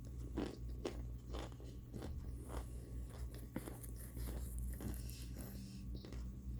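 Crunchy bites and chewing of microwaved cornstarch and baby powder chunks, a sharp crunch about twice a second.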